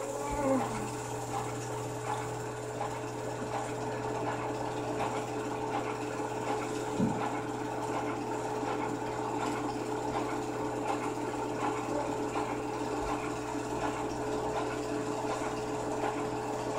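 Film projector running, a steady mechanical whirring with a constant hum as the film runs through it.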